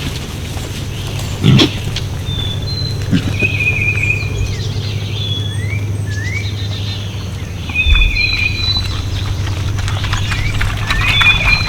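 Outdoor ambience of birds singing, short whistled notes and quick rising calls repeating throughout, over a steady low hum, with a couple of dull thumps.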